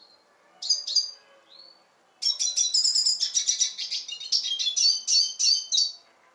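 Male red siskin singing: two short high chirps a little after half a second in, then from about two seconds in a fast, unbroken twittering song of high notes that stops near the end.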